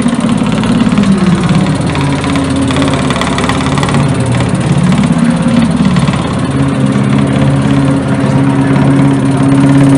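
Intonarumori noise intoners playing together with Wandrè electric basses: a loud, dense buzzing rasp with low tones that slide up and down and shift pitch.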